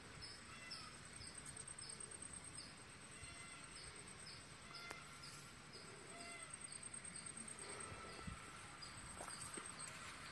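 Faint rural ambience: insects trilling steadily at a high pitch, with a short chirp repeating about two to three times a second, and occasional bird calls.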